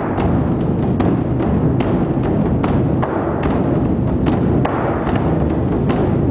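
Drums beaten in a live percussion performance: a continuous rumbling roll with sharp cracks about two to three times a second.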